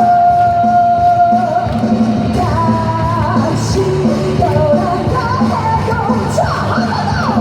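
Live pop-rock song played loud through a PA, a lead vocal line holding a long high note at the start and then moving through a melody over drums and bass.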